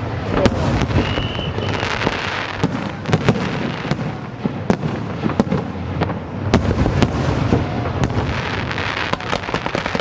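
Fireworks going off: a rapid, irregular string of sharp bangs over dense crackling, with a brief whistle about a second in.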